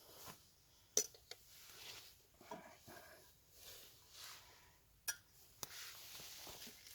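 Quiet handling of camp cookware and food: a few light clinks and taps of metal utensils and pots, the sharpest about a second in and two more around five seconds in, with soft rustling and scraping between them.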